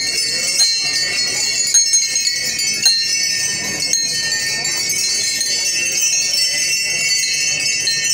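Dense, continuous metallic jingling and ringing of many bells, with a few sharper strikes, over a murmur of voices.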